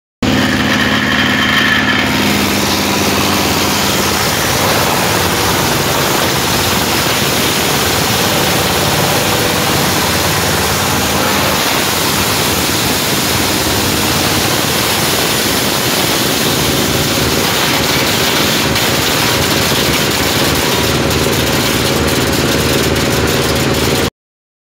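Wood crusher running steadily, a loud dense mechanical din with a few steady tones in its first two seconds. Fine sawdust is spraying out of its discharge. The sound starts and stops abruptly.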